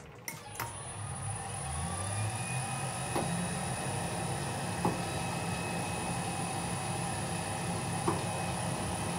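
Large commercial mixer's electric motor switched on with a couple of clicks, spinning up over about two seconds and then running steadily with a high whine. Light knocks sound three times while it runs.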